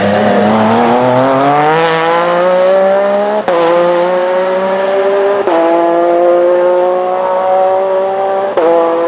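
Porsche 911 RSR (991) race car's 4-litre flat-six accelerating hard, the engine note rising steadily and dropping sharply at three upshifts: one about a third of the way in, one just past halfway and one near the end.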